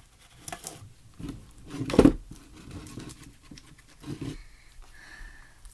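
Sticky slime being stirred in a bowl after more borax activator was added: irregular wet squelching and crackling, loudest about two seconds in.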